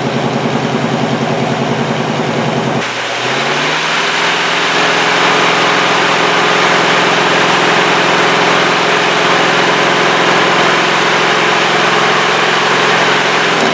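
Chevy 350 small-block V8 idling with a rapid, even exhaust pulse. About three seconds in the revs rise and hold higher, easing back near the end. It is a worn engine burning oil that the owner believes is blowing past its piston rings.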